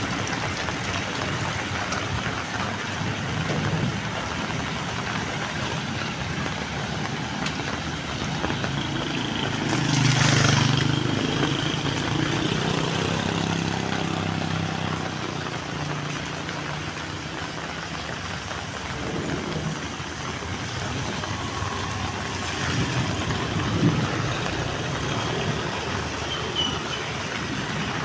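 Heavy rain falling steadily, with a motor vehicle's engine passing close by about ten seconds in, rising and then fading away.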